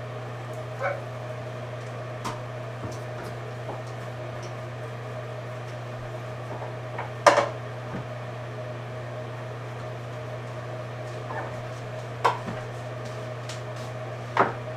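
Metal bread loaf pans knocking and clattering on a wooden table as dough is set into them: a handful of separate knocks, the loudest about seven seconds in, over a steady low hum.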